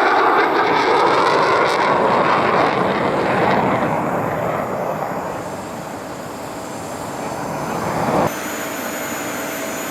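F-35 fighter's single F135 turbofan engine roaring as the jet flies past, fading and then swelling again. The roar cuts off abruptly about eight seconds in and gives way to a quieter, steadier jet roar with a faint high whine.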